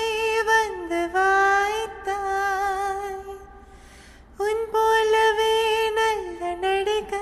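A woman's voice humming a slow, wordless melody in long held notes, with a pause of about a second in the middle.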